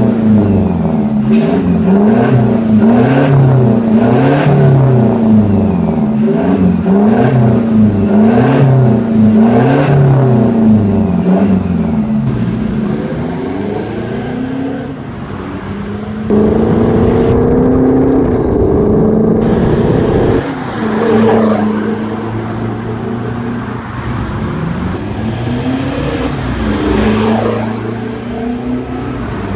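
Toyota Hilux Conquest diesel engine through an aftermarket turbo-back exhaust, revved repeatedly while standing, about one blip a second. About twelve seconds in, the truck pulls away and accelerates, the exhaust note rising and falling through the gears.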